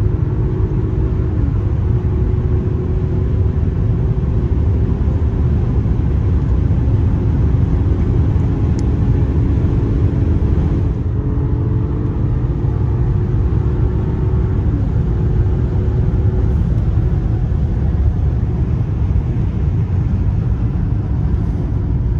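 Inside the cabin of a 2021 Mercedes S-Class cruising at about 165–176 km/h: a loud, steady low rumble of road and running gear, with a faint engine hum over it that dips briefly a couple of times.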